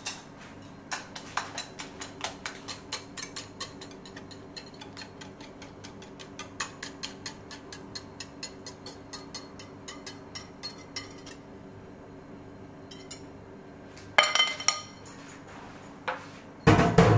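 Light clinks of a metal utensil against a glass mixing bowl, evenly spaced at about three a second, as batter liquid is poured onto flour. Near the end come two louder clatters of kitchenware against glass.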